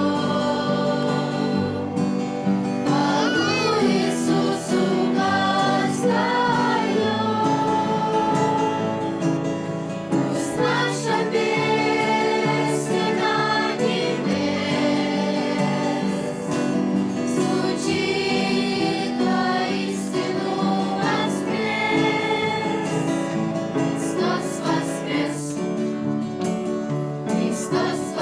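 A group of voices singing a Christian song with instrumental accompaniment.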